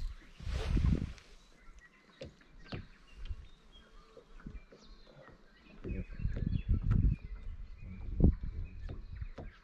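Small birds chirping faintly in short high calls throughout. Heavy low rumbling bursts come about a second in and again between six and eight and a half seconds, the loudest near the end.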